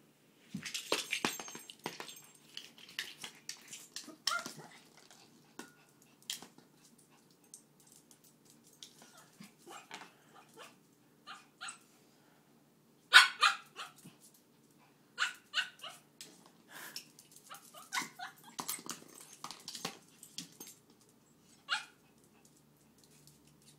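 Small dog barking and growling in short, scattered bursts during excited play, with sharp knocks and clicks of a toy being pushed across a wooden parquet floor; the loudest bark comes about halfway through.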